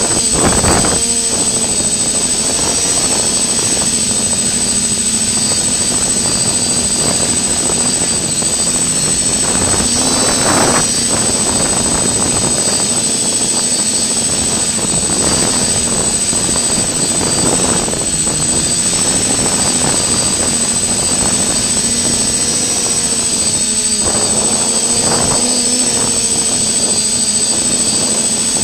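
Multirotor drone's electric motors and propellers whining steadily, the pitch wavering with throttle changes, with a few brief surges.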